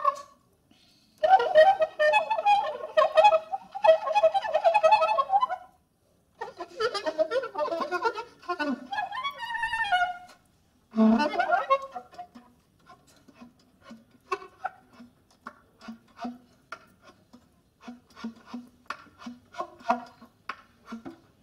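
Soprano saxophone played in free improvisation: phrases of wavering, fluttering held tones for the first ten seconds, then a sharp attack followed by a long run of short separate pops and clicks, a few a second.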